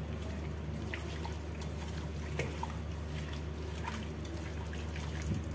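Wet squishing and small sticky clicks of a bare hand kneading raw chicken pieces through a thick yogurt-and-spice marinade in a steel bowl, over a steady low hum. There is a soft bump near the end.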